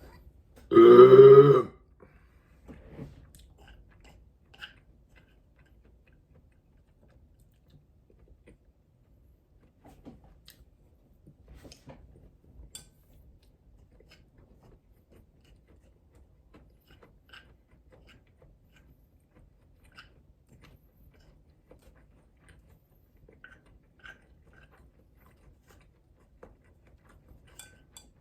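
A loud, drawn-out burp lasting about a second near the start, followed by faint scattered mouth clicks of chewing food.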